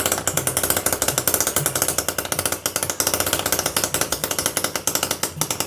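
Small homemade engine running with a fast, even clatter of many sharp ticks a second.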